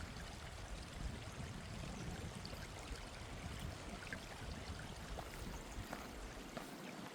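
A small stream running down a rocky gorge: a steady, even rush of water, with a few faint ticks here and there.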